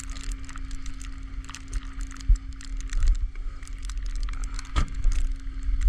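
Vehicle engine idling with a steady hum, under gusty wind rumbling on the microphone.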